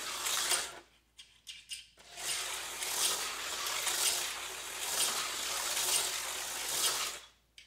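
Aurora HO slot car running laps on a small oval track, its motor and wheels whirring in the slot. It stops briefly about a second in, with a few clicks, then runs again and cuts off suddenly near the end.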